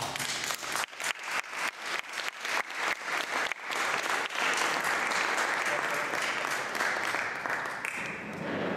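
Audience applauding: separate claps at first, thickening into steady applause about four seconds in, then dying away near the end.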